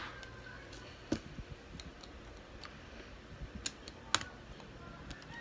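Plastic LELE building bricks clicking as they are pressed and fitted together by hand: a few scattered sharp clicks, the loudest about four seconds in.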